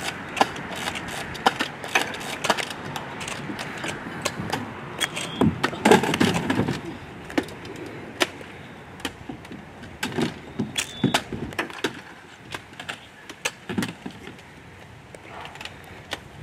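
Toy foam-dart blasters firing and being worked: an irregular string of sharp clicks and pops, with denser clattering around six seconds in and again around ten seconds in.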